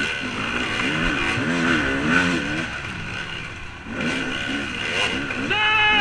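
Motocross dirt bike engine under hard riding, its pitch rising and falling with the throttle, with a high rev shortly before the end.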